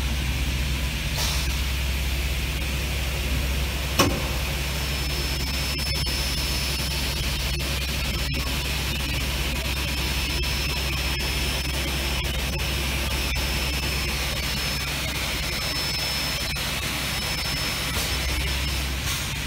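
Multi-spindle aluminium drilling and tapping machine running, a steady low motor hum under an even hiss, with a faint high whine through much of it and a single sharp click about four seconds in.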